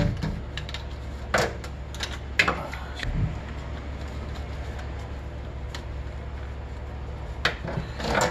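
A hard plastic fan cover and its wires being handled: a few scattered light clicks and knocks, over a steady low hum.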